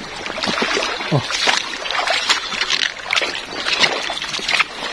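Shallow river water splashing and sloshing as a hooked eel on a line is hauled out of it, with many short splashes over a steady rush of flowing water.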